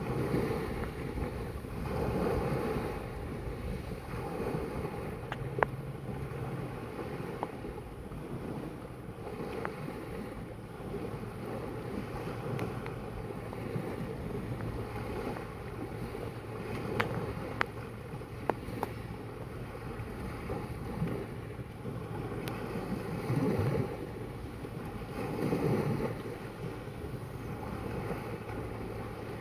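Sea waves washing and lapping, swelling every few seconds, with wind on the microphone and a few sharp clicks.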